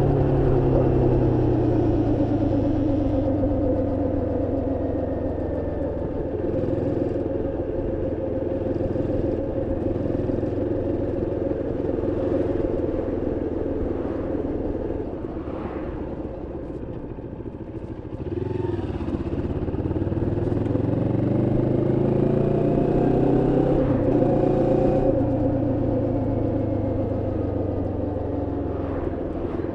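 Moto Morini X-Cape 650's 649 cc parallel-twin engine on the move: the revs ease off and sink lowest about 15 to 18 seconds in, then climb for several seconds and level off. The bike is in its running-in period and is kept to moderate revs.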